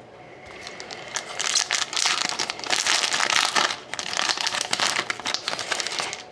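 Foil wrapper of an Upper Deck SP Authentic hockey card pack being torn open and crinkled by hand, a dense run of crackling with a short lull about four seconds in.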